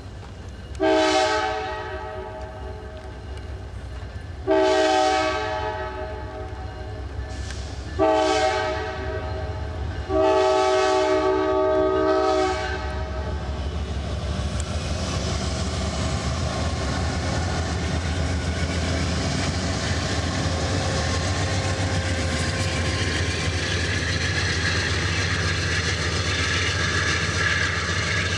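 Amtrak passenger train's locomotive air horn sounding four chord blasts in the long-long-short-long pattern of a grade-crossing warning, followed by the train running by, a rumble with wheels clicking over the rail joints that grows steadily louder.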